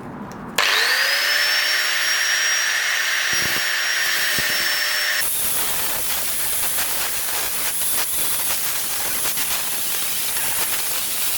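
Angle grinder starting up with a high whine that rises quickly in pitch and then holds steady. About five seconds in the sound turns harsher and noisier as it cuts into the aluminium throat plate.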